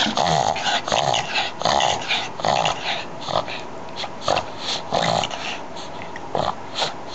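A dog reverse sneezing: quick, noisy breaths pulled in through the nose, coming in a fast run for about the first three seconds and then fewer and further apart.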